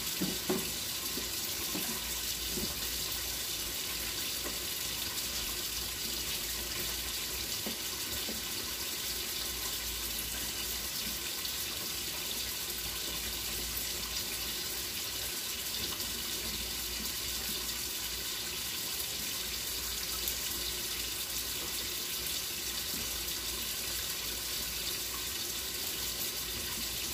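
A steady rushing hiss with a low hum beneath it, unbroken throughout, and a brief soft knock about half a second in.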